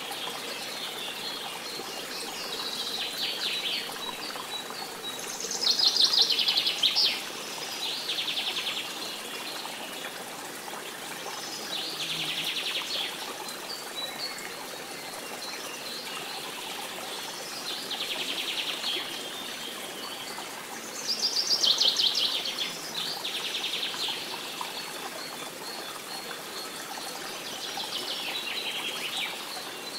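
Songbirds singing in short trilled phrases every few seconds, over a steady background of running water.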